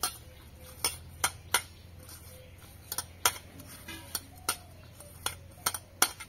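Hand mixing shredded raw potato with salt in a stainless steel bowl: about a dozen sharp, irregular clinks against the metal bowl.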